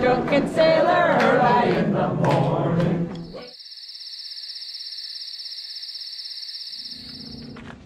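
A group of voices singing a sea shanty for about three seconds, then it cuts off. What follows is a steady, high, fast-pulsing insect trill that lasts about four seconds, with a faint low hum starting just before the end.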